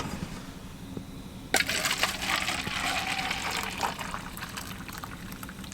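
Fuel pouring from a pump nozzle into a vehicle's tank. It starts suddenly about one and a half seconds in as a steady rushing fill and slowly eases off toward the end.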